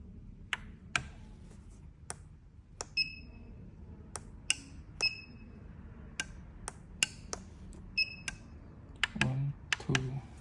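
About a dozen sharp, irregular clicks of small hard objects. Several leave a brief high ringing tone. Near the end there are two short low buzzes.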